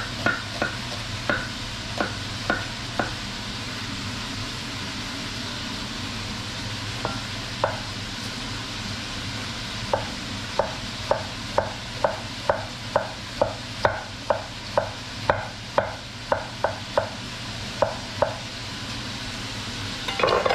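Knife chopping on a cutting board as a white onion is finely diced: sharp taps in runs, about two a second, with a brief louder clatter near the end. Under it, the steady sizzle of pork browning in the pot.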